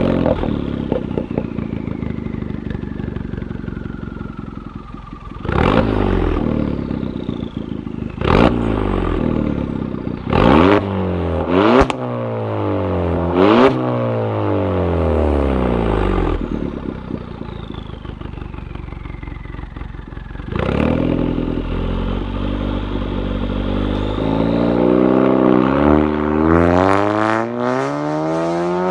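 Audi A3 engine through an Armytrix valved performance exhaust: it flares loudly and settles toward idle. It is then blipped sharply several times, each rev dropping back, and near the end it pulls away, the engine note rising as it accelerates.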